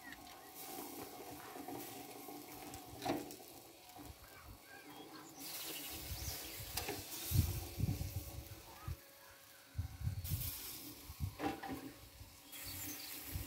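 Faint sizzling of fat and juices dripping onto hot charcoal under a whole sheep roasting on a spit. There are irregular low rumbles and a few sharp clicks, the plainest about 3 seconds in and near the end.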